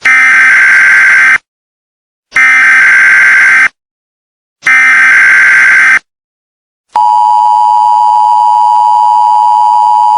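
Emergency Alert System alarm: three loud SAME header data bursts, each about a second and a half long with short silent gaps between them, then the steady two-tone EAS attention signal starting about seven seconds in.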